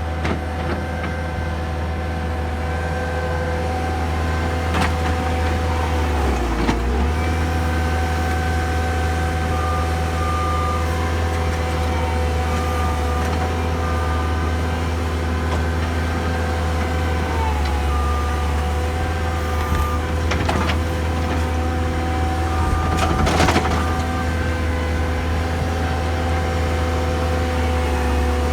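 Skid steer loader's engine running steadily, with a brief dip in pitch about seven seconds in and a few knocks.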